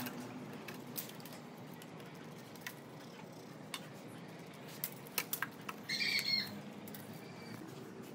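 Scattered light clicks and taps as a pencil and tape measure are handled against a wooden tree stump, over a faint background hum. About six seconds in, a brief high-pitched squawk sounds for about half a second.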